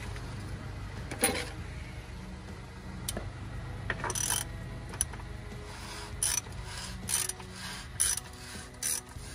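Hand ratchet wrench being worked on a fastener under a truck's hood: short runs of ratcheting clicks and metal clinks, roughly once a second, with a sharp clank about a second in. A steady low hum runs underneath.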